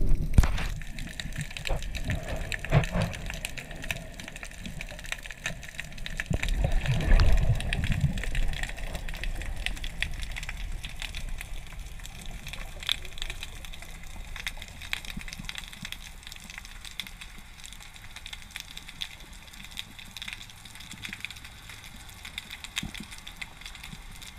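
Underwater sound picked up by a submerged camera: a low rushing of water, loudest in the first eight seconds, over a steady scatter of faint crackling clicks.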